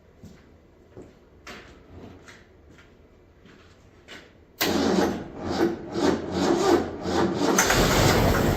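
Old Ford Bronco engine cranking over on its starter, with a rhythmic chugging that starts suddenly about halfway in after a few faint clicks. It is a start attempt on the freshly reassembled engine, which is not yet getting fuel reliably.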